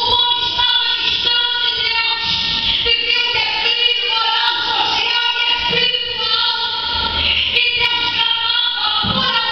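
A woman's voice amplified through a microphone and PA, in long, held, pitched phrases that sound like singing.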